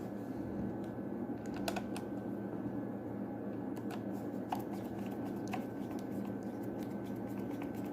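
Computer mouse button clicked repeatedly at irregular intervals, testing its newly soldered-in replacement switch, which clicks cleanly.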